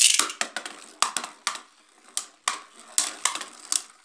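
Beyblade spinning tops clashing in a plastic basin: a sharp clack as the second top goes in, then a run of irregular hard clicks and clacks as the tops strike each other and the basin wall.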